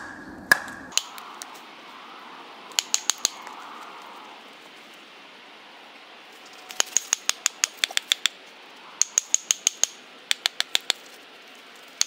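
A wooden baton tapping the back of a small Gränsfors hatchet to drive it into a wet birch round, in quick runs of light, sharp knocks with a faint metallic ring: a group of four, then longer runs of five to ten at about six a second. The blade is being worked in to open a gap wide enough to set splitting wedges.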